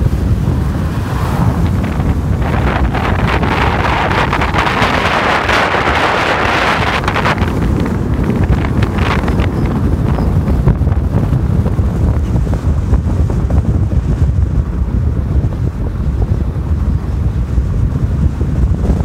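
Wind buffeting the microphone over a steady low rumble, as when filming from a moving car. A hissing rush swells about two seconds in and fades out about seven seconds in.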